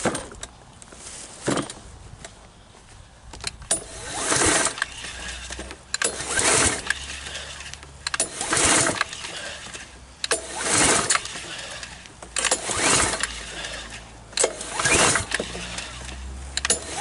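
Recoil starter cord of a Predator 173cc lawn mower engine pulled about once every two seconds, seven pulls in a row, each a short whirring rasp as the engine turns over without starting.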